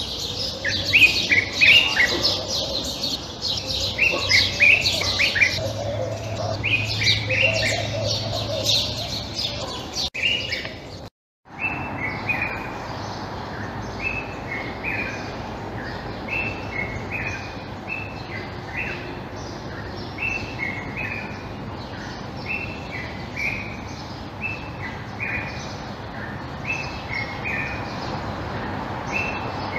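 Common bulbul chirping and twittering, a busy run of calls at first. The sound drops out for a moment about eleven seconds in, then short chirps repeat at an even pace, often in pairs.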